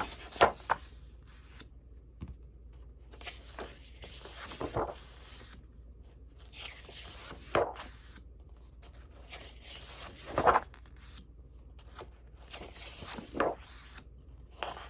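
Sheets of craft paper and stickers being handled and shuffled: intermittent rustling and crinkling, with a few sharper taps and slaps of paper.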